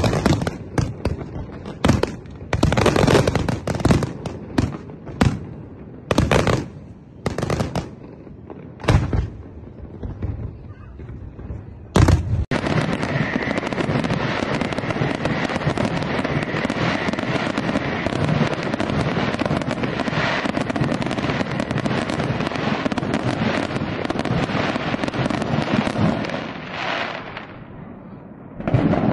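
Aerial fireworks shells bursting: separate sharp bangs for about the first twelve seconds, then many bursts overlapping in a continuous barrage that dies down near the end.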